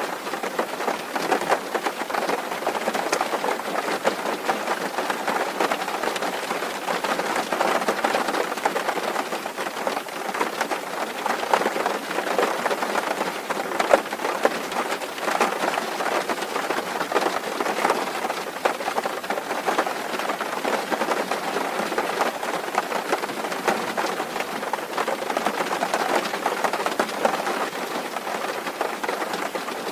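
Steady heavy rain falling on a tin roof: a dense, unbroken mass of drop impacts that holds an even level throughout.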